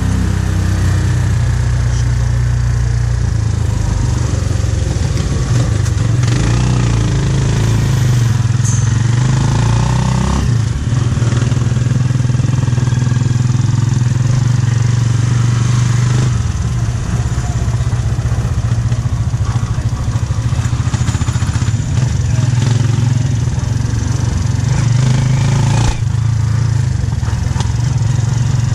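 Motorcycle engine of a tricycle running under way, heard from inside the sidecar, its pitch rising and falling a few times as the ride goes on.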